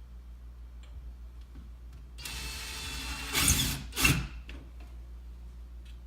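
Makita 18V cordless drill driving a screw: it runs for about a second, then gives two short, louder bursts about half a second apart.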